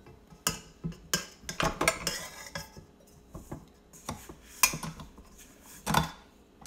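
Spatula scraping and knocking against a mixing bowl holding bread dough: irregular scrapes and clatters, with two sharper knocks in the second half.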